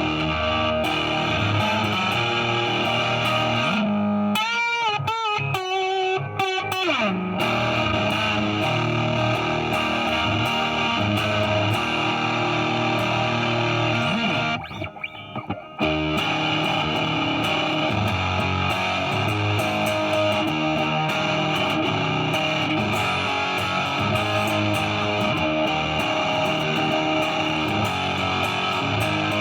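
Epiphone 1959 Les Paul Standard electric guitar on its bridge pickup, played through a fuzz pedal into an amp: thick distorted riffs and chords, with wavering string bends about four to seven seconds in and a brief break about halfway through.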